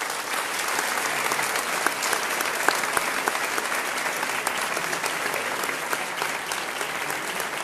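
Large audience applauding, the steady clapping of many hands.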